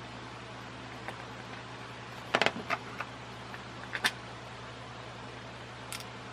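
Small metal screws and a screwdriver clicking and clinking against the fan parts during a screw swap: a quick cluster of clicks about two and a half seconds in, a louder click around four seconds, and a faint one near the end, over a steady low hum.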